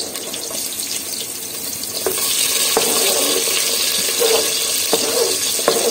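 Garlic sizzling in hot oil in a pot; about two seconds in, sliced red onion is scraped in off a plastic cutting board and the sizzle grows louder. A spoon clicks against the board a few times.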